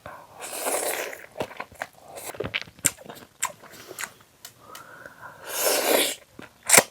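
Close-mic eating of konjac noodles in som tam: wet chewing with crisp crunchy clicks, and two longer breathy slurps, one near the start and one near the end.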